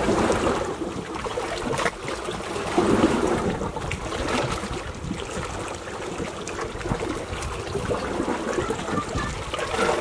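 Small sea waves lapping and sloshing at the shoreline, a steady wash of water that swells louder at the start and again about three seconds in.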